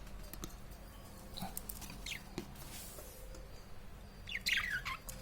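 Small pet parrot chirping: a few short chirps falling in pitch, then a louder run of falling chirps near the end.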